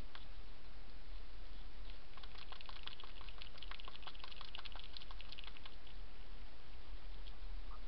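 A hedgehog eating dry food: a quick run of crisp crunching clicks lasting about four seconds in the middle, over a steady low hum.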